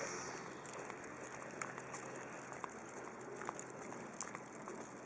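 Quiet footsteps of a walker and several leashed dogs on asphalt: light scattered clicks and scuffs over a faint steady background noise.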